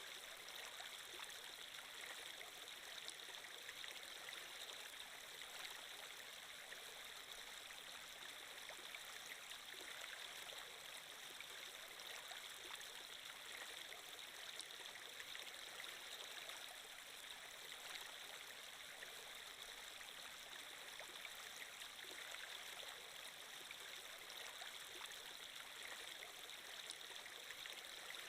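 Faint, steady running water, like a flowing stream, used as an ambient water-flow sound effect.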